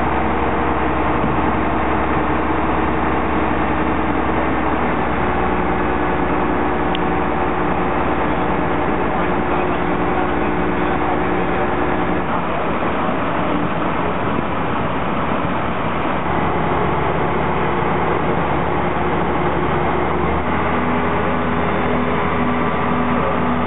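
Heavy fire-service truck engines running steadily at a rescue scene, a constant engine hum that shifts in pitch a few times.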